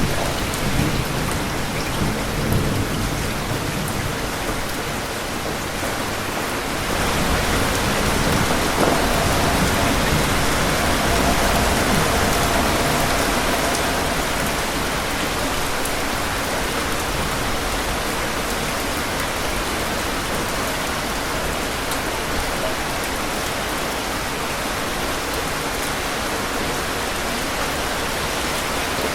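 Steady rain with thunder rumbling through the first several seconds. About seven seconds in, the rumble dies away and the rain grows fuller and a little louder, then holds steady.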